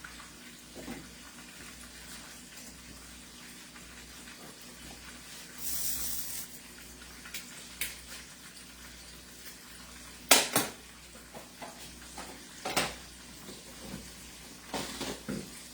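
Kitchen clatter of cookware and utensils: a few sharp knocks, the loudest about ten seconds in, over a steady faint hiss, with a brief hissing rush about six seconds in.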